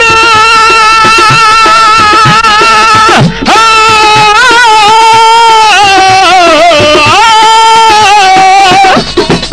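A male folk singer's voice singing Punjabi Sufi verse in long held notes with wavering, ornamented pitch bends, broken by a brief breath about three seconds in. Near the end the held note stops and percussion starts.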